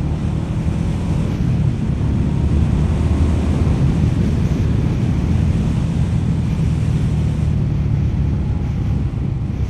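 Indian Scout's V-twin engine accelerating hard, heard from the rider's seat, with wind rushing over the helmet microphone. The engine gets a little louder about two seconds in.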